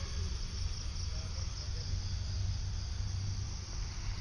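Steady insect chirring from crickets or similar insects, an even hiss over a low steady rumble.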